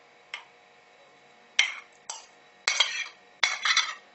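Metal fork scraping chopped cooked spinach off a plate and spreading it: a light clink, then about five short scrapes from halfway through.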